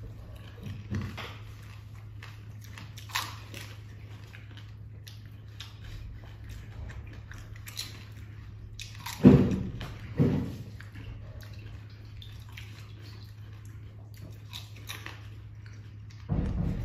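Two people eating fuchka (pani puri) fast: hollow puris cracked, dipped into spiced water, then crunched and chewed, with drips and small splashes. Two louder sharp sounds come about nine and ten seconds in, over a steady low hum.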